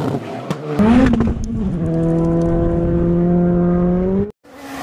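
Rally car engine held at high revs, a loud steady note whose pitch creeps slightly upward before cutting off abruptly near the end. A shorter burst of engine and road noise comes before it.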